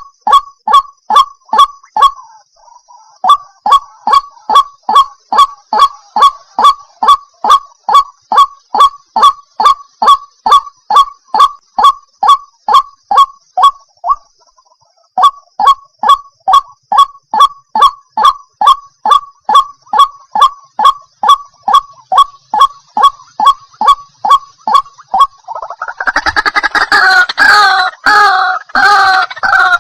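White-breasted waterhen calling: a long run of short, loud, croaking notes repeated about two a second, with two brief breaks, giving way near the end to a louder, denser jumble of overlapping calls.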